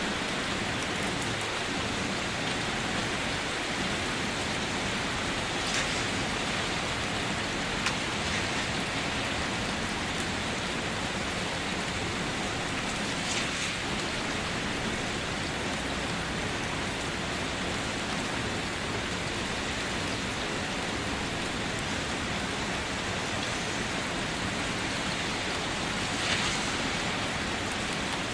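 Steady rain falling, a dense even patter, with a few louder single drips standing out now and then.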